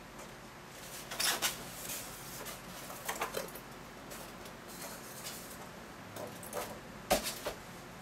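Cardboard box and foam packing being handled as parts are lifted out: a few short bursts of rustling and knocks, the sharpest near the end.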